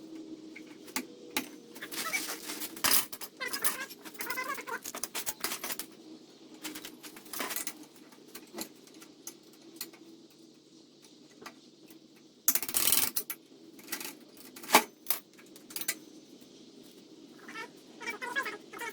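Metal tools and parts clinking and clattering during mini bike disassembly, with scattered sharp clicks and a louder clatter about twelve and a half seconds in.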